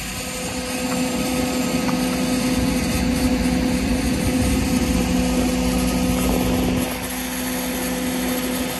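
Cat 308 CR mini excavator's diesel engine running with a steady hydraulic hum as the boom lifts and swings a wooden piling. The hum eases off about seven seconds in.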